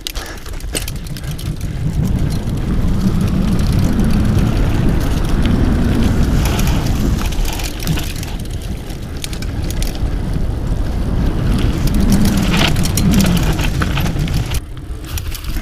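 Mountain bike being ridden, with wind buffeting the microphone and frequent small rattles and clicks from the bike over the ground.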